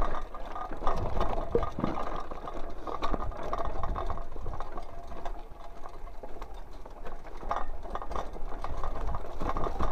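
Mountain bike rolling over a rough, stony dirt path, its chain and parts rattling unevenly, over a steady low rumble.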